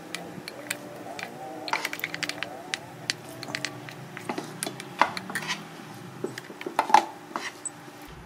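A cooking utensil clinking and scraping against a stainless steel wok while stir-frying cabbage, carrots and meat. The taps are irregular, and the loudest come about five and seven seconds in.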